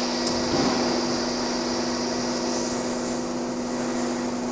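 Electric horizontal forced-action concrete mixer running, its motor and gear drive giving a steady hum with a few fixed pitches.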